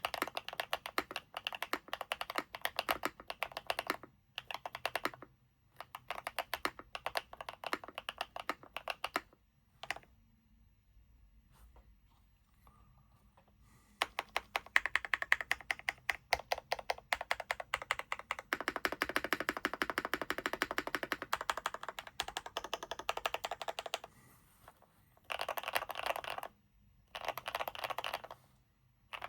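Typing on an NK87 mechanical keyboard fitted with BSUN x Zuoce Macaron linear switches: rapid keystrokes in bursts, with a marbly sound, a pause of about four seconds near the middle and shorter breaks later on.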